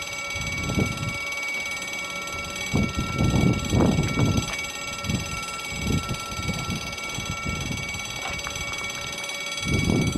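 Wind gusting on an outdoor microphone in irregular rumbling buffets, under a steady thin high-pitched whine.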